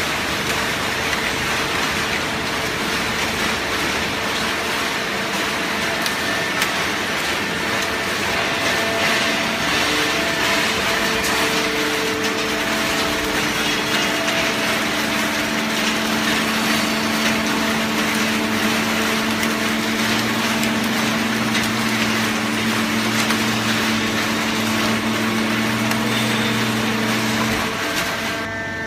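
Automatic horizontal hydraulic baler running, a steady mechanical clatter and hiss. About ten seconds in, deeper steady hums from the hydraulic power unit set in and hold until shortly before the end.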